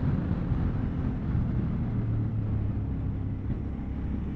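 Suzuki V-Strom motorcycle engine running steadily under way, with a continuous rush of road and wind noise.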